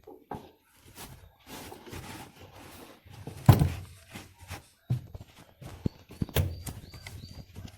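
Irregular knocks and clunks, with the loudest about three and a half seconds in and another strong one at about six and a half seconds, and a few short high chirps near the end.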